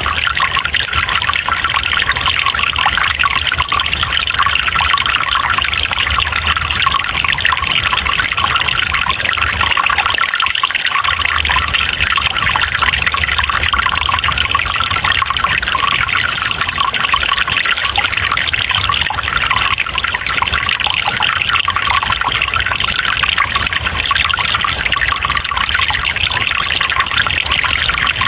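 Water trickling and splashing steadily in a small stream, a constant rushing hiss.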